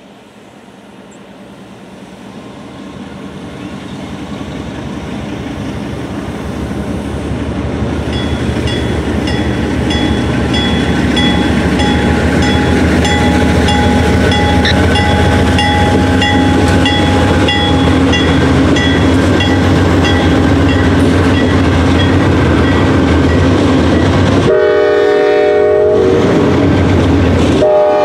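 Pan Am Railways freight train's diesel locomotives approaching and passing, their engine rumble growing steadily louder over about ten seconds, with a locomotive bell ringing steadily through the middle. Near the end the air horn sounds two blasts, the loudest part.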